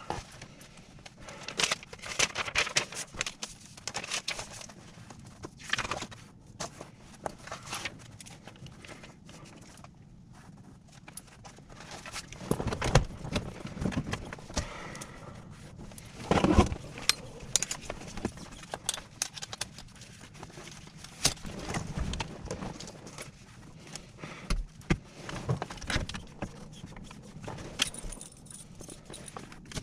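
Irregular clicks, taps and rustles of paper, pen and clipboard being handled in a Cessna 172 cockpit, with keys jingling.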